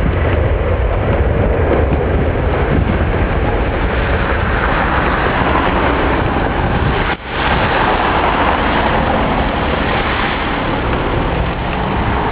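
Jet engines of a Boeing 767-400 running loud and steady on takeoff, a continuous noise whose weight moves from a low rumble toward a higher hiss after a few seconds. The sound drops out for an instant about seven seconds in.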